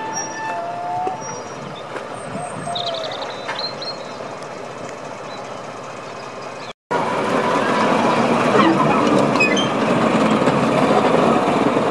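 BR Class 14 diesel-hydraulic shunting locomotive running as it moves slowly with a brake van. After a brief drop-out about seven seconds in, it is louder and closer, passing by with its engine and wheels running over the rails.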